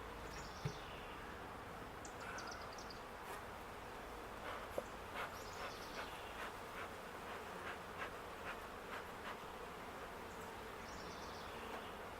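Honeybees buzzing faintly around an open hive, with a run of light clicks about halfway through.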